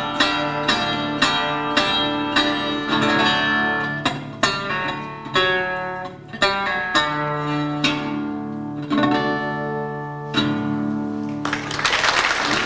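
Solo acoustic blues guitar, plucked notes over a repeating bass, with the last chord left ringing. Audience applause breaks out near the end.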